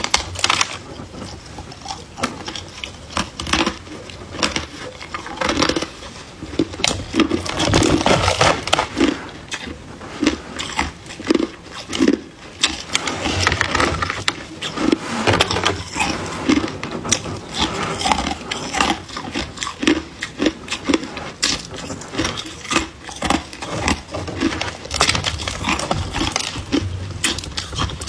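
Crushed ice being bitten and chewed close to the microphone: repeated crunches and crackles in runs with short gaps.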